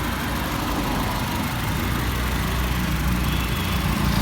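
Honda City ZX GXi's four-cylinder petrol engine idling steadily, with a low, even hum.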